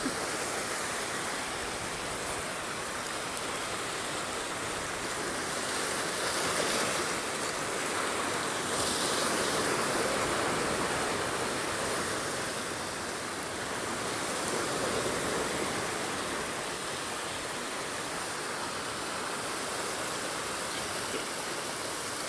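Sea surf breaking and washing over shoreline rocks: a steady rushing that swells louder a few times.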